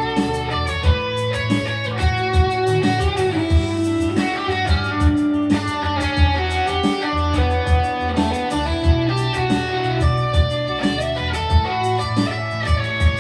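Instrumental music led by electric guitar, with many quick picked or tapped notes over a steady bass line and drum beat.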